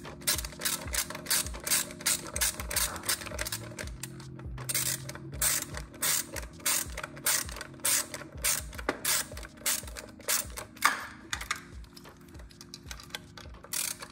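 Hand ratcheting driver clicking in quick runs, about four clicks a second, as it is swung back and forth to loosen bolts on the electric bike's motor controller terminals. The clicking thins out over the last few seconds.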